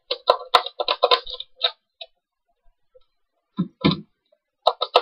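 Plastic clicks and rattles of a Nerf blaster being handled, with a dense run of them in the first second and a half. A single heavier clunk comes about three and a half seconds in, and clicking starts again near the end.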